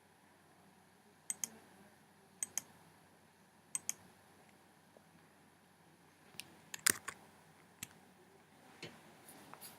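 Clicks from operating a computer: three quick double-clicks about a second apart, then a handful of louder single clicks and taps, the loudest about seven seconds in.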